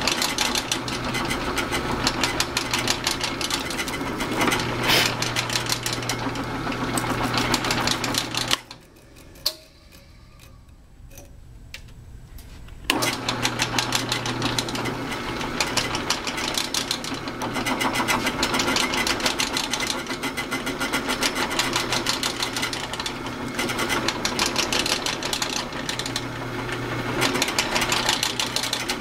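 Drill press motor running steadily while its bit drills down into a block, throwing off long curls of swarf. About eight seconds in it goes quiet, with a single click in the lull, and about four seconds later starts again abruptly.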